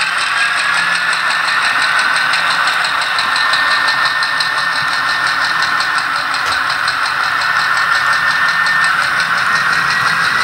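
Model diesel locomotive's ESU sound decoder playing a diesel engine running under load through its small onboard speaker, with a steady high whine over the engine note and a fast, even ticking.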